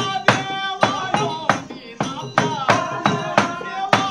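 Togalu Bommalata shadow-puppet performance music: a voice singing a melody over sharp, evenly paced percussive clacks, about two or three a second.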